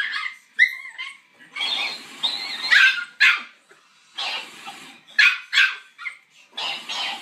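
A puppy barking and yipping in about four bouts, with sharp short yaps among them.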